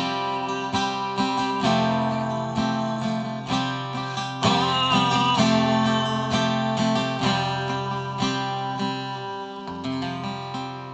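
Acoustic guitar strummed, about one chord a second, growing steadily quieter as the song's closing bars die away, with the last chord ringing out near the end.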